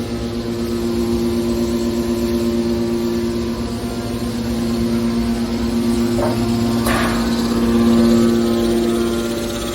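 Hydraulic scrap metal baler running, its pump and motor giving a steady hum with two brief noises of the press working at about six and seven seconds in.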